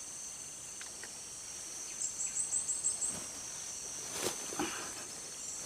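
Steady high-pitched insect chorus. About two seconds in comes a quick run of about six high chirps, and there are a few faint rustles and knocks in the second half.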